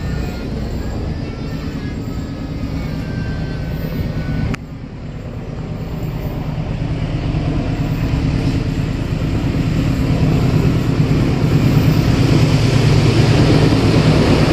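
Diesel locomotive approaching on the track with its train, a low engine drone with a steady hum that grows steadily louder over the last ten seconds. The sound drops suddenly about four and a half seconds in before the build-up.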